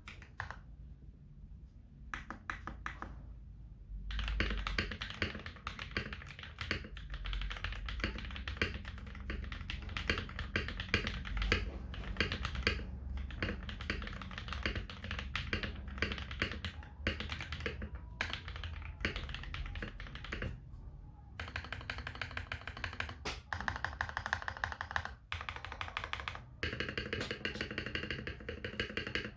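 Typing on a TM680 mechanical keyboard with lubed Akko Rose Red linear switches, foam-modded case and PBT Cherry-profile keycaps: fast, continuous key clacks. The strokes are sparse at first, pause briefly about twenty seconds in, then resume at a quick pace.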